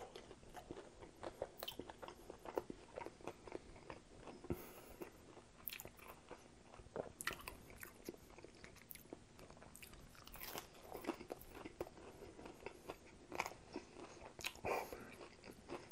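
Close-up chewing and biting of crisp fried chicken tenders: irregular small crunches and wet mouth clicks throughout, with louder bursts of crunching about halfway through and near the end.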